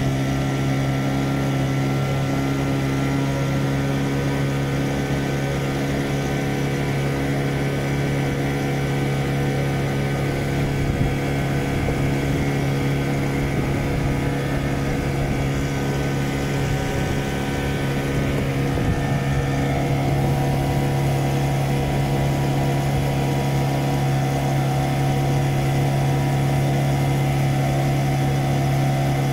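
Motor of a small boat running steadily under way, a constant low engine drone; its tone shifts slightly about two-thirds of the way through.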